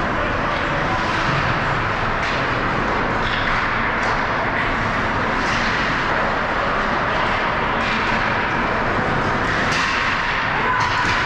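Ice hockey rink ambience during a game: a steady wash of noise with a few faint scattered clicks and knocks.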